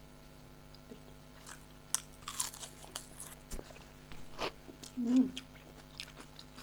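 People eating close to the microphone: scattered chewing and biting clicks and mouth noises, with a short hummed 'mm' about five seconds in.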